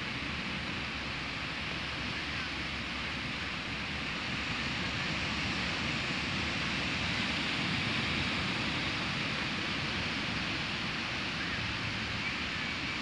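Small waves breaking and washing up on a sandy beach: a steady hiss of surf that swells a little about halfway through.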